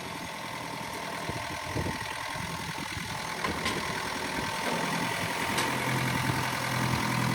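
A vehicle engine running at idle, growing steadily louder toward the end.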